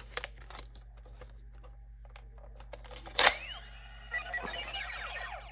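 Plastic clicks of a Power Rangers Megaforce Gosei Morpher toy being handled with a Power Card, a sharp snap a little past three seconds in, then the toy's electronic sound effect starts: a rapid run of falling electronic tones.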